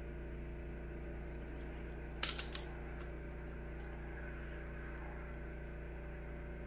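A wrench and socket on a connecting-rod cap bolt of a Honda B16 engine give a quick cluster of three or four sharp metallic clicks about two seconds in, with a few faint ticks after, over a steady hum.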